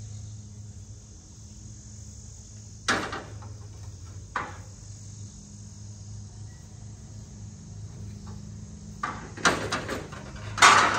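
Pieces of scrap metal knocking and clattering as they are handled: two single knocks a few seconds in, then a quick run of clanks near the end, the last the loudest. Insects chirr steadily behind them over a steady low hum.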